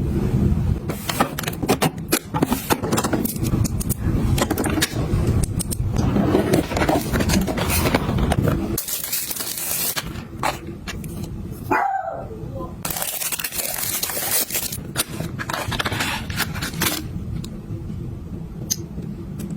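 Small items being handled and set down: a dense run of clicks, taps and scrapes. A low steady hum lies under the first half and stops abruptly about nine seconds in.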